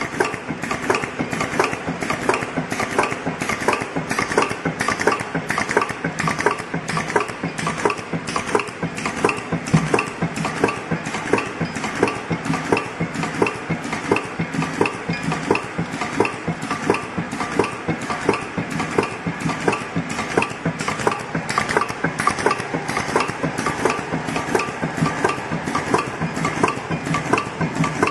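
Automatic paper-tag hole-punching machine running: the pneumatic punch cycles at about three strokes every two seconds, over a continuous light clatter of stiff tags rattling along the belt feeder.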